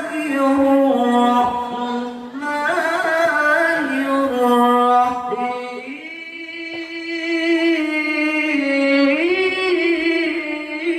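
A male qari reciting the Quran in the melodic tilawah style into a microphone, holding long ornamented notes that waver and glide; the melody sinks in the middle and rises again near the end.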